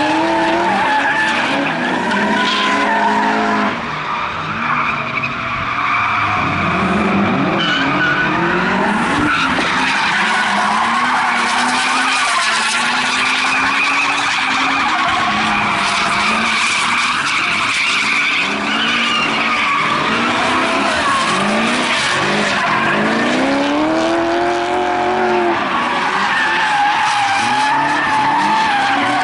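Drift cars sliding one after another, engines revving hard and falling away again and again as the throttle is worked, with tyres squealing through the slides.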